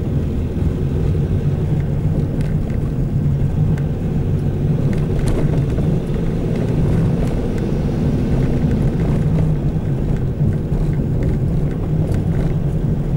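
Steady low engine and road rumble heard from inside a moving car's cabin.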